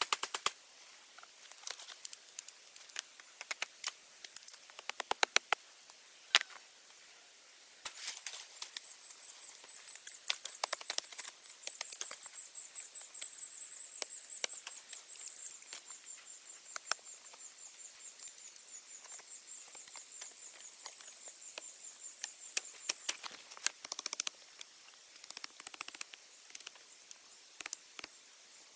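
Machete and knife cutting green wooden sticks: irregular chops, knocks and clicks, with rustling in leaf litter between them. Behind them a steady high whine, and from about eight seconds in a fast, high ticking trill that stops a little after twenty seconds.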